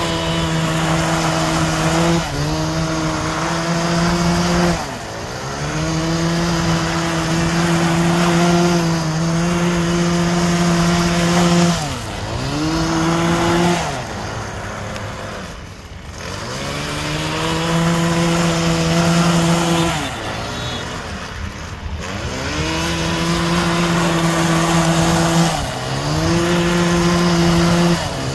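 Small petrol engine of a Husqvarna power tool running at high revs, its pitch dropping and climbing back about five times as the throttle is let off and opened again.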